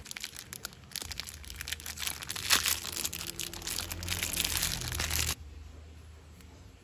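Clear plastic wrapping around a roll of stickers crinkling and crackling as it is handled, with many sharp crackles; it stops abruptly about five seconds in.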